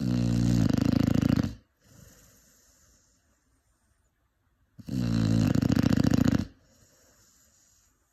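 A five-month-old Cane Corso puppy snoring in its sleep: two loud snores about five seconds apart, each lasting about a second and a half and followed by a fainter breath.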